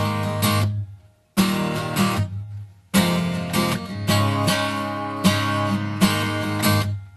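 Background music: acoustic guitar strumming chords, the instrumental intro of a song, broken by two short pauses.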